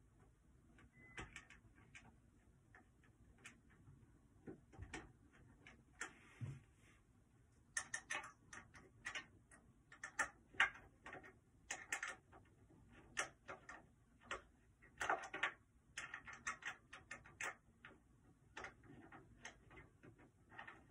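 Faint clicking and ticking in quick, irregular runs, thickest through the middle, from hands working a fitting at the edge of a flat-pack dining table during assembly.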